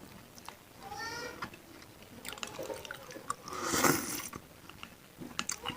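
Close-miked eating of bakso meatball soup: chewing with small wet clicks and a louder slurp of broth near four seconds in. There is also a short pitched sound about a second in.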